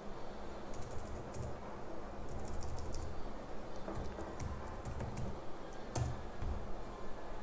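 Typing on a computer keyboard: irregular clusters of key clicks, with one louder keystroke about six seconds in.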